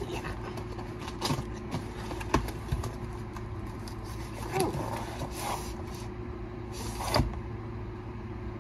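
A cardboard box being handled and opened by hand: a few short scrapes and taps of cardboard, spread out, over a steady low hum.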